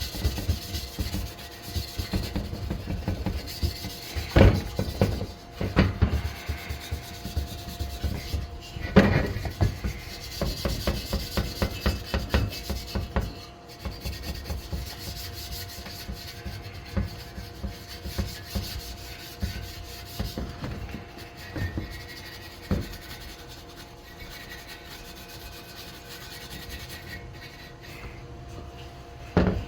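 Hand sanding of a scooter's metal exhaust with a Scotch-Brite pad, scraping off grime and surface rust in quick, irregular rubbing strokes with an occasional knock. The scrubbing is busiest in the first half and lighter after about the midpoint.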